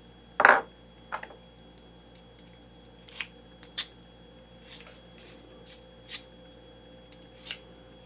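Scattered light clicks and clinks of small hard objects being handled. The loudest is about half a second in, followed by a second one about a second in and then sparse lighter ticks.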